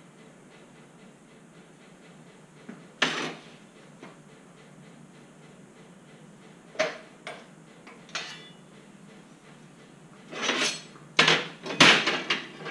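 Steel bracket plates clanking against a steel bench vise and a steel welding table as they are handled: a few sharp metallic knocks, one about three seconds in, a few more midway, and the loudest cluster near the end.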